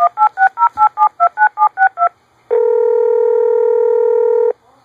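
A phone dialing a number: a rapid string of about a dozen touch-tone keypad beeps, about six a second. After a short pause comes a steady two-second ringing tone as the call rings through.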